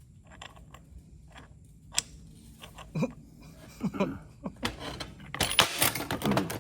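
Small steel locker parts clicking and clinking against the Dana 30 differential carrier as the assembled locker is worked into it by hand: scattered light clicks, then a dense clatter of metal on metal near the end.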